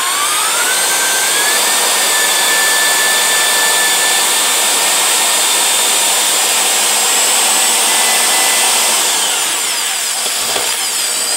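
Electric drill spinning a length of 16-gauge galvanized steel wire clamped in its chuck, the wire turning inside a hole in a wood block to straighten it. The motor's whine rises as it speeds up over the first couple of seconds, holds steady, then eases off near the end.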